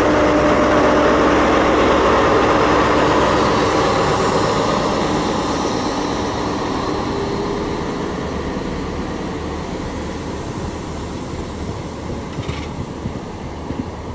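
Class 43 HST power car's diesel engine pulling a train away from the platform; its engine tone fades as the power car draws off. A rumble of Mark 3 coach wheels on the rails remains as the coaches roll past.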